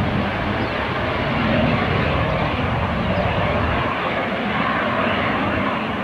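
Twin Williams FJ44 turbofan engines of a Cessna Citation CJ3 business jet running as it rolls along the runway: a steady rushing jet noise, with a low rumble underneath that fades about four seconds in.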